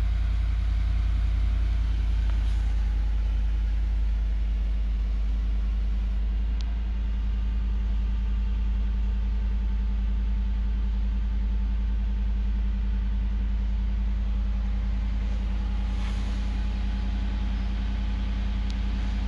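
A 2019 Ford F-150 pickup's engine idling steadily, heard from inside the cab as a low, even hum, with a few faint clicks.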